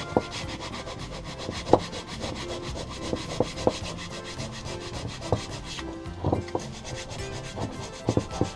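Abrasive paper rubbed by hand over the gasket face of a two-stroke moped cylinder barrel, fast even back-and-forth strokes sanding off old gasket residue, with a few sharper knocks of the part on the bench.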